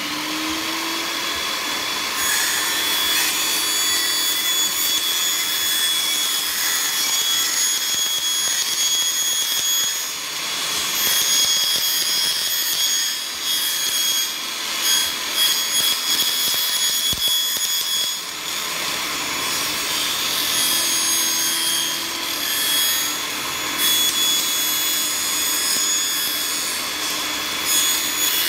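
Portable benchtop table saw running and ripping a strip of vinyl J-channel lengthwise, with a steady high-pitched whine over the noise of the blade cutting the plastic. The motor is coming up to speed at the start.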